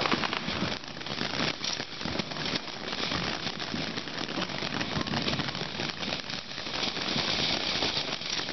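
Ground fountain firework spraying sparks: a steady hiss full of fast crackles, the hiss growing brighter near the end.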